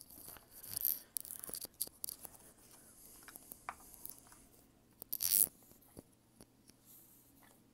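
Small-object handling noise while glue is got ready: rustling and light clicks and taps. There is a louder short scrape about five seconds in, just before a small plastic pot is held up.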